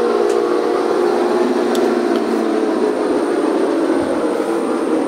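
1930s turret lathe running on a variable-frequency drive: a loud, steady mechanical whir from the machine with several even tones.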